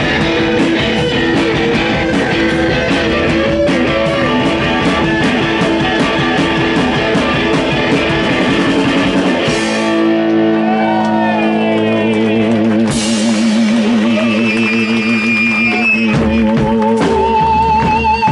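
Live rock band playing with drums and electric guitars. About halfway through, the drums drop out, leaving sustained, wavering and sliding guitar tones, and a low bass comes back in near the end.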